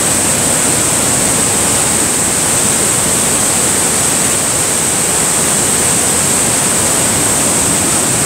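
Steady, loud roar of Niagara Falls at close range, the water crashing onto the boulders at its base.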